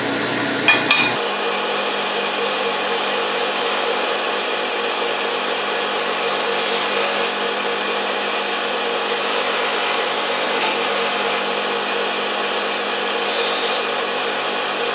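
Bench grinder running with a steady hum while aluminium blocks are pressed against its wheel, deburring and rounding their sharp edges. A hissing, rasping grind gets louder each time a block bears on the wheel, most clearly about six seconds in, around ten seconds in and near the end.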